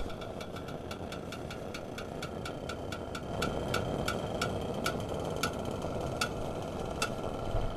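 Propane fire pit burning with a steady rushing flame that grows a little louder about three seconds in. Over it runs a series of sharp ticks that gradually slow from several a second to about one every second.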